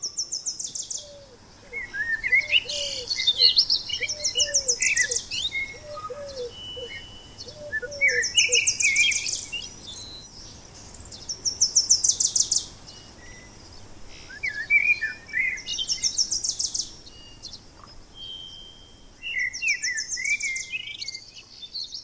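Song sparrow singing its song over and over, a phrase about every four seconds: a clear opening note, a high buzzy trill and a jumble of notes, among other birdsong. A string of about ten low honks, from distant Canada geese, runs from about two seconds in to near the middle.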